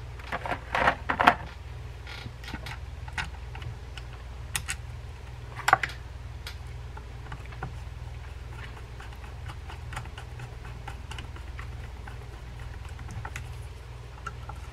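Screwdriver and small screws clicking against the metal frame of an Ocean City 609 Big Game reel as screws are fetched and driven into the harness-lug holes: a quick cluster of knocks in the first second and a half, then sparse light ticks with a couple of sharper clicks, over a steady low hum.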